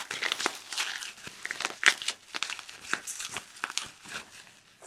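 Packaging crinkling and rustling as it is handled, a dense run of crackles that thins out near the end.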